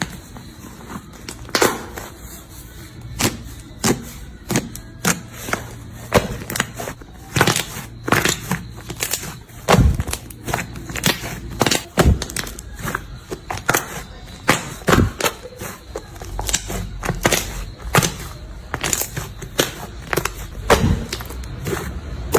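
Slime being handled and squeezed, making irregular sharp pops and crackles.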